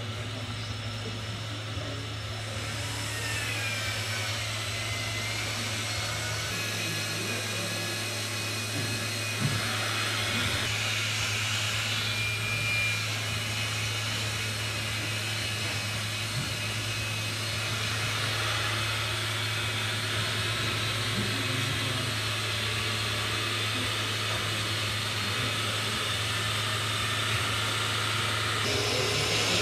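Radio-controlled tipper truck's small electric hydraulic pump whining steadily as the tipper body raises and the soil load slides out, over a steady low hum.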